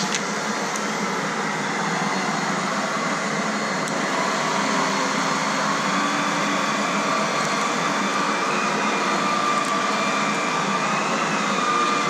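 Aerus Lux Legacy canister vacuum cleaner running while its power nozzle is pushed over carpet: a steady, a little loud rush of air with a motor whine that creeps slightly up in pitch after about six seconds.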